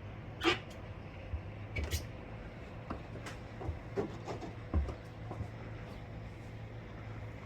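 Steady low hum of a catamaran's engine running under way, with several short knocks and clicks over the first five seconds.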